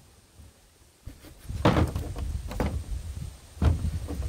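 A chicken flapping its wings right beside the microphone: three loud bursts about a second apart over a low rumble of buffeted air.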